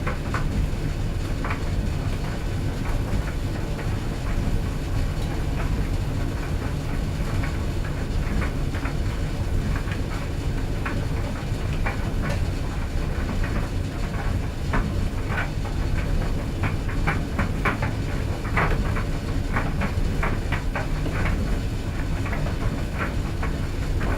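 Clothes dryer running with a steady low rumble, with irregular light clicks and taps from the tumbling load that come more often in the second half.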